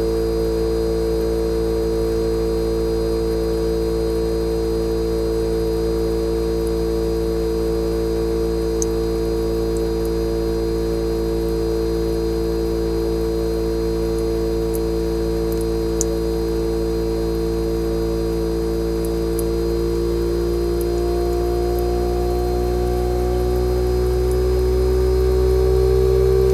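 Fujitsu General AO-C28H inverter air-conditioner outdoor unit running during defrost, its compressor giving a steady hum made of several held tones. From about twenty seconds in the pitch climbs slowly and the sound grows a little louder as the inverter gradually raises compressor speed for defrosting.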